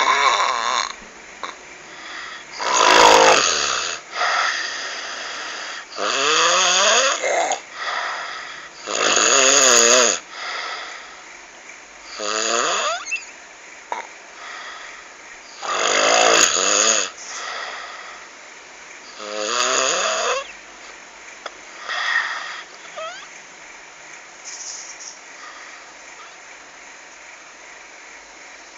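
A person snoring: frog-like, croaking snores about every three seconds, many rising in pitch through each snore. They grow fainter and die away in the last third.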